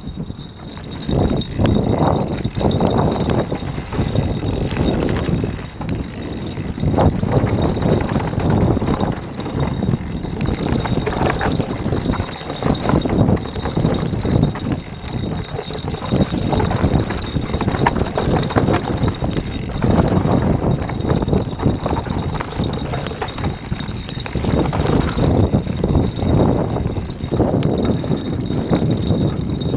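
Dual-crown downhill mountain bike rolling down a rough dirt trail: tyres on dirt with a continual rattle of chain and bike over the bumps, rising and falling in loudness with the terrain.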